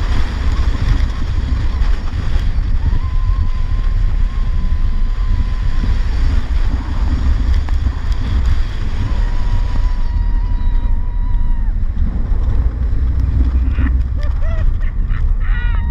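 Wind rushing over the camera microphone and the low rumble of a Leviathan giga coaster train speeding along its steel track through the hills. A faint steady whine runs through the middle. A few short rising tones and clicks come near the end.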